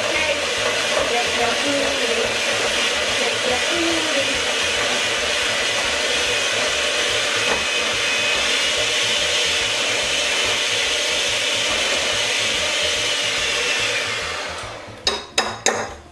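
Electric hand mixer running steadily, its beaters whisking pumpkin pie filling in a glass bowl. It winds down about fourteen seconds in, followed by a few quick clicks and knocks.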